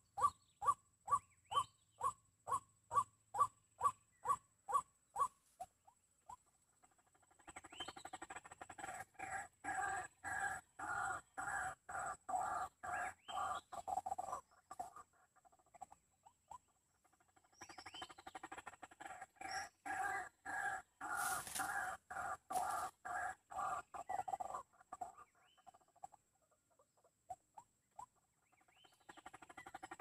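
White-breasted waterhen calls played to lure the bird: a string of evenly spaced single notes, about two a second, that stops about five seconds in, then the raucous croaking chorus in bursts about seven seconds long, twice, with a third starting near the end.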